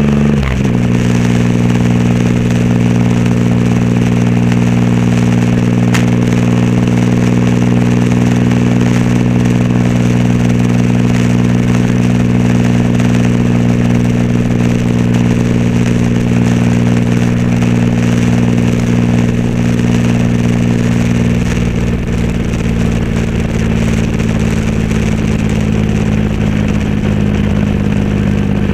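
Triumph Rocket 3 Roadster's inline three-cylinder engine running through a custom exhaust, held at steady revs while riding. The tone dips briefly right at the start, then runs even, and eases slightly about three-quarters of the way through.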